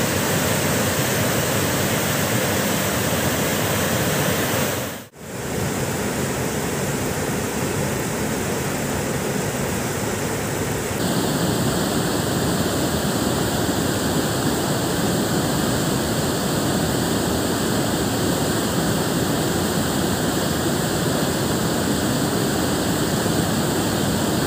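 Flooded river pouring over a waterfall and through rapids: a steady rush of churning water. It cuts out briefly about five seconds in, and from about eleven seconds on the rush is fuller and deeper.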